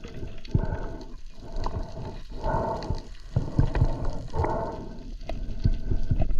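A spearfisher breathing through a snorkel: each breath is drawn as a hoarse, pitched rush, repeating about every two seconds, over water sloshing and gurgling around the snorkel and camera.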